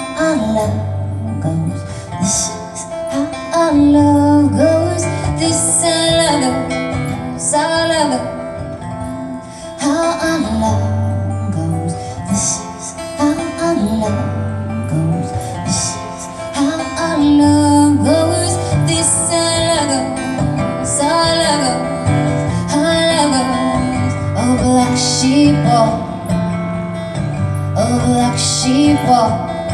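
Live acoustic guitar strumming while a woman sings.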